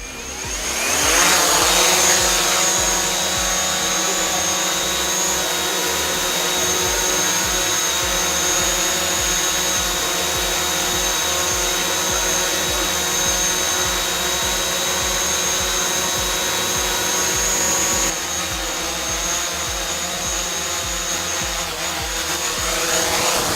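DJI Mavic Pro quadcopter fitted with low-noise propellers: the motors spin up with a rising whine, hold a steady multi-toned buzzing whine while it hovers, then spin down with a falling pitch near the end.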